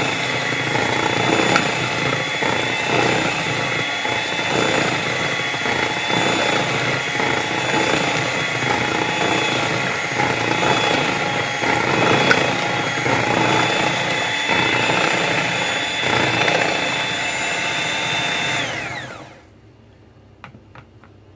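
Electric hand mixer running steadily with a whine, its twin wire beaters churning wet banana batter in a bowl. About 19 seconds in it is switched off and the whine falls away as the motor spins down.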